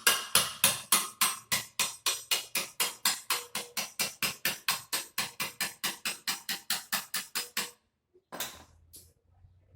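Rapid, evenly spaced hammer blows on a steel bar driven into a motorcycle muffler, about three to four a second, each with a short metallic ring, punching through the muffler's inner baffle to change the exhaust note. The blows stop about eight seconds in, followed by a couple of fainter knocks.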